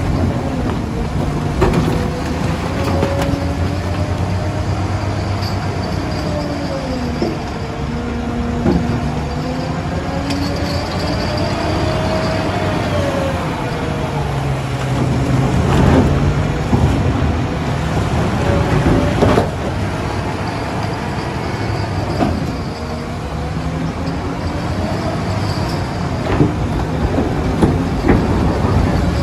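Digger's diesel engine running steadily, with a hydraulic whine that slowly rises and falls in pitch as the machine works, and a few sharp metallic knocks.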